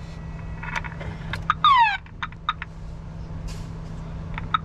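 Old PA speaker box with a microphone, powered from a car's cigarette lighter, giving out a short falling electronic sweep about a second and a half in. Several sharp clicks sound around it, over a steady low hum.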